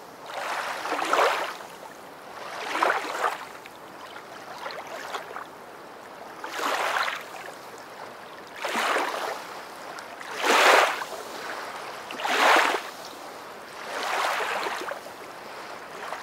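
Small waves washing onto a shore, a swell of water noise about every two seconds over a steady low wash.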